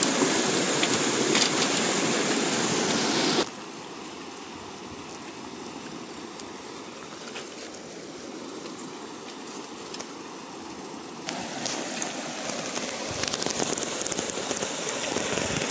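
Fast river current rushing over stones and around bamboo bridge posts: a steady rushing of water. It is loud at first, drops suddenly to a softer flow about three and a half seconds in, and swells again about eleven seconds in.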